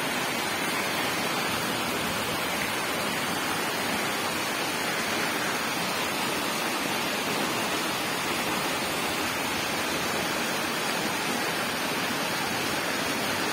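Heavy rain falling steadily: an even, unbroken hiss with no single drops or rumbles standing out.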